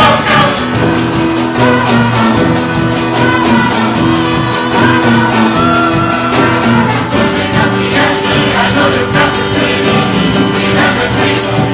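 A large choir singing long held notes over a steady beat of drums and percussion, live on stage.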